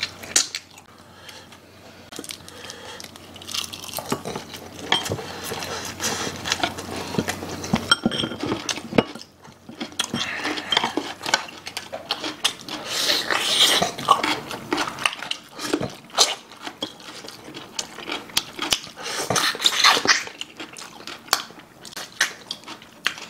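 Eating sounds: chewing and biting into braised pork backbone meat held on the bone, with many short clicks of chopsticks and utensils against ceramic bowls and plates.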